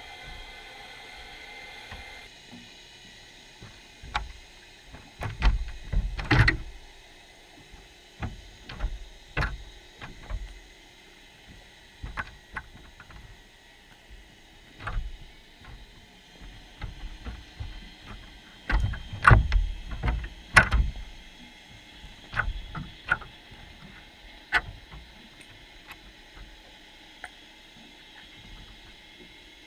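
Underwater sound inside a wire-mesh fish trap: irregular clicks, knocks and low thuds as fish bump the wire and the camera housing. The knocks bunch up about five to seven seconds in and again near twenty seconds in.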